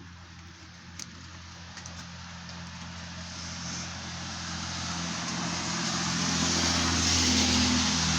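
Diesel locomotive engine drone growing steadily louder as the train approaches, peaking near the end, with a broad hiss of rain and wet rolling noise over it. There is no whistle.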